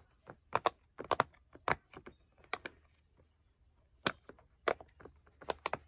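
Bubbles of a square rainbow silicone pop-it fidget toy being pushed in by fingers, giving an irregular run of sharp little pops with a pause of about a second in the middle.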